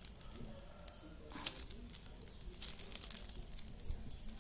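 Soft crinkling of a plastic wrapper as fingers peel it from a small ball of bread fishing bait, strongest about a second and a half in and again near the three-second mark. A bird coos faintly in the background.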